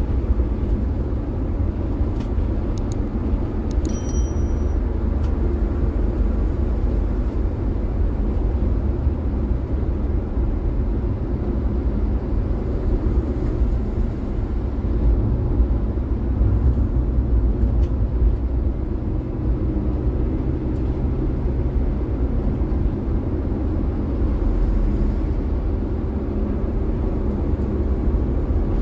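Steady in-cabin noise of a Daihatsu Gran Max van cruising on a highway: a low rumble of engine and tyre/road noise with no change in pace. There are a few faint clicks about two to four seconds in.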